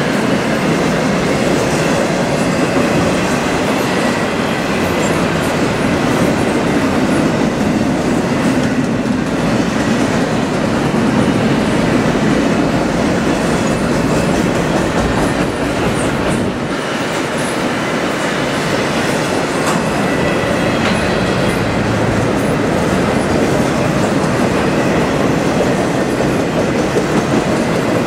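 Double-stack intermodal well cars loaded with shipping containers rolling steadily past on the rails: a continuous rumble of wheels on track, with a faint high steady tone above it.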